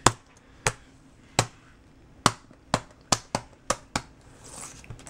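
Black-capped capuchin monkey pressing keys on a MacBook Pro keyboard: about ten separate key taps at an uneven pace, some louder than others.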